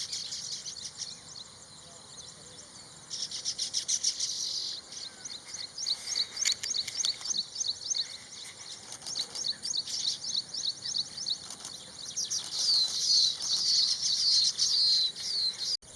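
A chorus of small birds chirping and twittering rapidly in high-pitched calls, swelling about three seconds in and again near the end.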